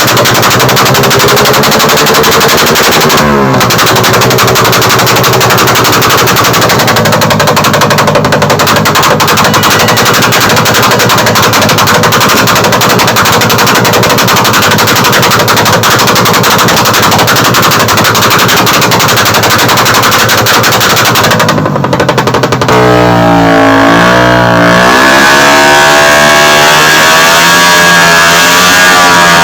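Suzuki Raider 150 carbureted motorcycle engine revving through an aftermarket AUN exhaust pipe, with rapid backfire popping like machine-gun fire. Near the end the engine pitch swings up and down with repeated revs.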